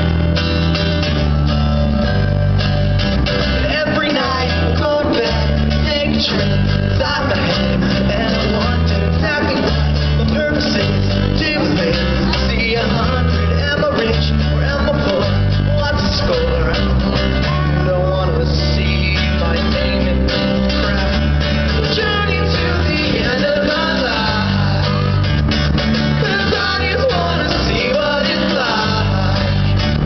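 Live pop-rock band playing through a PA system: a lead singer over strummed acoustic guitar, electric guitar, keyboard and a steady bass line.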